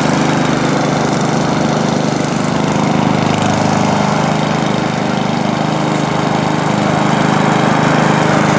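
Gasoline push lawn mower's small engine running steadily under load while cutting grass.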